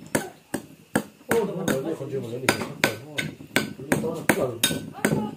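Metal spoons clinking and knocking against ceramic bowls and a rice tub during a meal: a quick, irregular string of sharp clicks.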